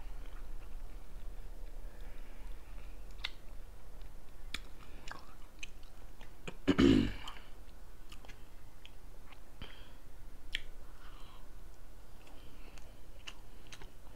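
A person chewing poke bowl food close to the microphone, with many short wet mouth clicks. A short loud burst about seven seconds in.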